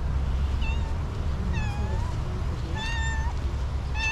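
Tuxedo domestic cat meowing at the person, four short meows about a second apart, the third the loudest and the last still sounding near the end, over a steady low rumble.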